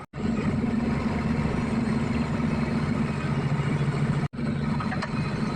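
Engine idling steadily with an even low hum, broken by two abrupt brief gaps, one at the very start and one about four seconds in.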